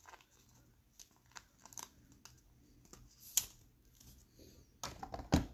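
Baseball cards in clear plastic sleeves being handled: scattered light rustles and clicks of plastic and card stock, with a sharper snap about three and a half seconds in and a cluster of them near the end.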